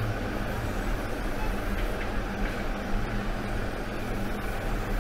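Steady background noise with a low mains hum: an even hiss with no distinct events.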